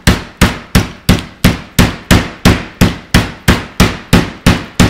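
Meat mallet pounding round steak through plastic wrap on a cutting board: a steady run of hard thuds, about three a second, flattening and tenderizing the meat.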